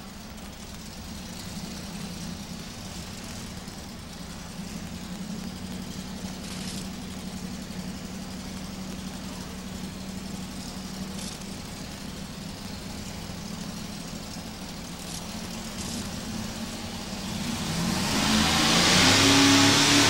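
Chevrolet 4x4 modified pulling truck's engine running steadily at low revs while hooked to the sled, then revving up hard about three seconds from the end, its pitch rising and growing much louder as it launches into the pull.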